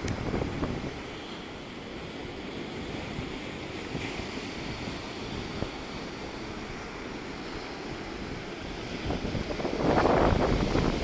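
Sea surf washing in, with wind buffeting the microphone; a stronger gust of wind rumble comes near the end.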